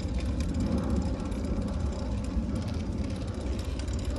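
Steady wind rush and rumble on a handlebar-mounted phone's microphone while riding a bicycle along a tarmac path, with the tyres rolling underneath.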